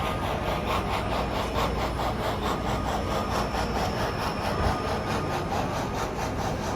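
Model train running on a layout's track, its wheels clicking in a steady fast rhythm of about five clicks a second, with a single low thump about four and a half seconds in.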